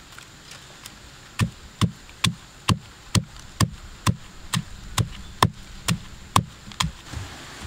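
Pestle pounding red chilies in a stone mortar: a steady run of about thirteen knocks, about two a second, starting a little over a second in.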